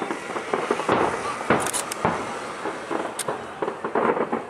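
Distant fireworks display: scattered bangs and crackles from aerial shells bursting, over a busy background of crowd voices.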